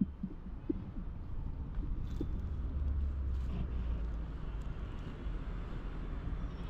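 Low, steady outdoor rumble with a few faint light ticks, and no distinct event.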